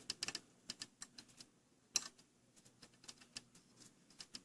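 Faint, irregular small clicks and taps of a screwdriver and small screws being worked and handled on a laptop's screen mounting, with one sharper click about two seconds in.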